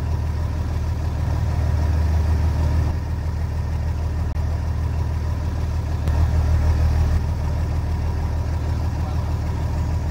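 Fishing boat's engine running with a steady deep drone, growing a little louder twice for a second or so.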